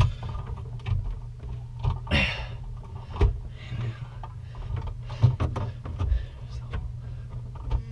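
Scattered knocks and clicks, with a brief scrape about two seconds in, from hands handling electrical wiring and an outlet in a sink cabinet. A steady low hum runs underneath.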